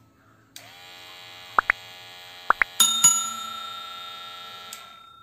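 Subscribe-button animation sound effects: two pairs of quick clicks, then a bright bell chime struck twice that rings and slowly fades, over a steady electronic tone.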